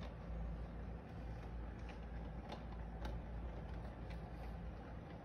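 Model electric train running on its track: a steady low hum and rumble, with sharp clicks about once or twice a second.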